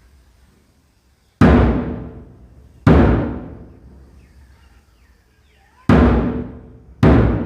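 A large drum struck four times at uneven intervals, each deep boom dying away over about a second.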